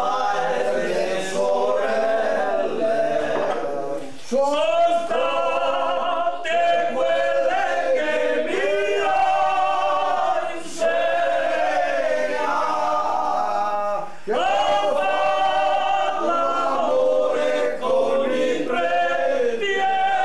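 A small group of men singing a traditional tavern song unaccompanied, in several voices together. Long sung phrases, with brief breaks for breath about four seconds in and again about fourteen seconds in.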